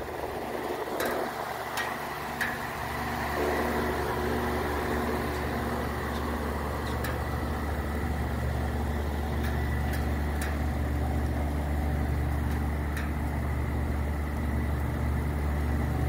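Older outdoor air-conditioning condenser unit running: a steady low hum that grows stronger about three seconds in, with scattered sharp clanks at irregular intervals. The clanging is the sign that the unit needs servicing.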